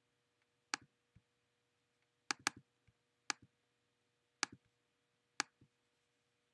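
Computer mouse clicked six times, sharp single clicks roughly a second apart, two of them in quick succession about two and a half seconds in.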